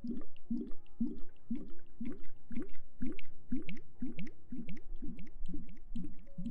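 Rhythmic wet squishing of lathered hair being massaged by hand, about two strokes a second, with small wet clicks.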